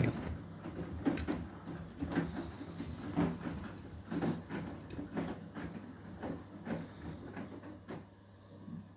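Beko WTK104121W front-loading washing machine on the final rinse of its Eco 40 cycle: the drum turns with a steady motor hum while the laundry drops and swishes about once a second in little water. The swishing dies away near the end.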